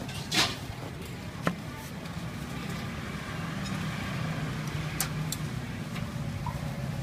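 A knife blade knocking sharply on a wooden cutting board a few times as dough is cut into strips, loudest about half a second in and again a second later, over a steady low rumble.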